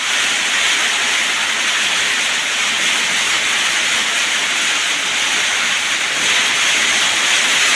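Torrential rain pouring down, a steady, dense hiss that keeps on without a break.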